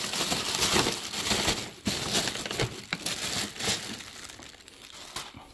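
Wrapping around fresh salmon pieces crinkling as it is handled and opened. It is loudest in the first couple of seconds, then thins out and fades.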